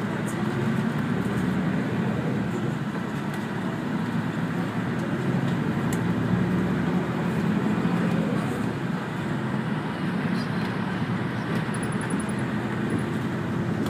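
City route bus heard from inside the cabin: the engine's steady low hum mixed with running and road noise, swelling a little in the middle.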